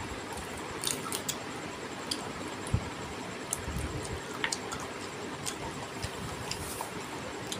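Close-up eating sounds from a person eating rice and curry by hand: scattered wet mouth clicks and smacks of chewing, with a single dull thump near three seconds in, over a steady background hiss.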